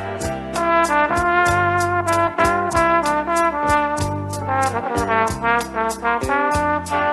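Gafieira samba band playing an instrumental passage, with trombone and brass carrying the melody over a bass line and a steady high percussion tick of about four beats a second.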